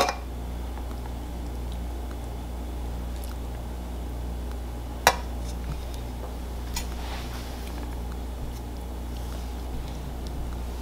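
A metal serving spoon scooping ground beef and green beans out of a stainless-steel skillet onto a plate, with one sharp clink about five seconds in and a few faint scrapes and ticks after it, over a steady low hum.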